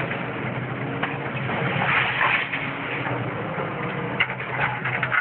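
Excavator's diesel engine running steadily while its arm tears into a brick building, with crunching and clattering of falling brick, wood and debris. The crunching is loudest about two seconds in, and there are sharp cracks near the end.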